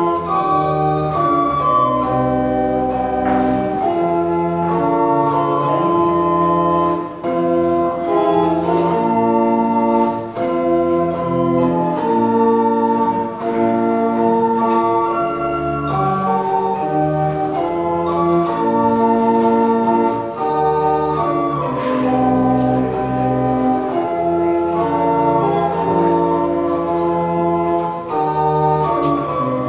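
Organ playing a slow piece of sustained chords, the notes held for a second or two and changing over a steady bass line.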